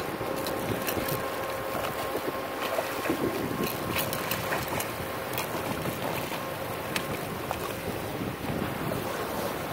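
Sea water sloshing and splashing against seaweed-covered rocks, with a hooked bluefish thrashing in the foamy shallows and wind buffeting the microphone. A faint steady hum sits in the background and fades out near the end.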